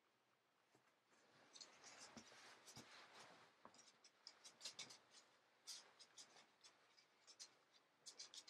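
Faint, irregular rustling of a Champion hoodie being pulled on over the head and its hood adjusted, with soft scratchy rubs of fabric against hair and skin starting about a second and a half in.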